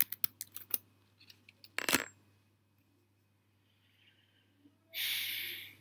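Typing on a computer keyboard: a quick run of keystrokes, then one sharper key press about two seconds in as the cell is run. A short hiss follows near the end.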